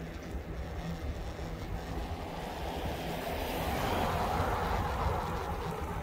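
Wind rumble on the microphone and road noise from a moving e-bike, with a rush of noise that builds to a peak about four seconds in and then eases off.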